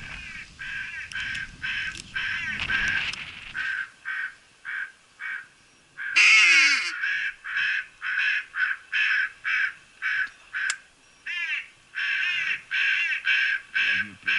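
Hooded crows cawing in a long, rapid series of short, harsh calls, with one louder, raspier squawk about six seconds in. A low rustling and handling noise runs under the first few seconds.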